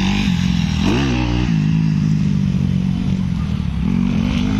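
Dirt bike engine running at low revs close by, with a quick blip of the throttle about a second in.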